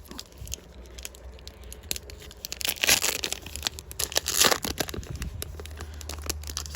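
Foil trading-card booster pack being torn open and its wrapper crinkled: scattered crackles and short rips, heaviest about three seconds in and again about four and a half seconds in.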